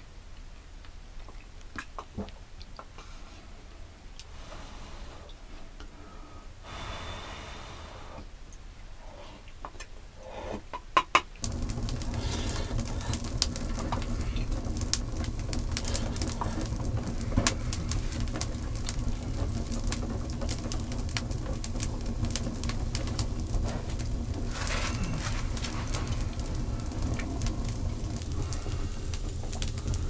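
Wood fire crackling in a clay-and-stone fireplace, with a steady low rumble of the burning fire; about a third of the way in it becomes suddenly much louder and closer. Before that, a few sharp clicks and knocks from a wooden spoon in a steel mug over the quieter fire.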